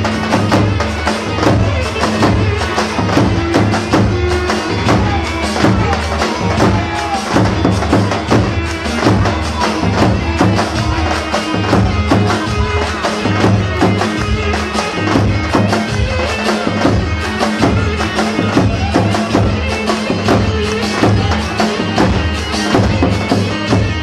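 Loud traditional-style dance music with a fast, steady drum and tambourine beat under a melody line.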